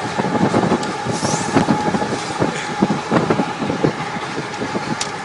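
Train running along the track, heard from on board: a steady running noise with irregular clattering and rattling throughout.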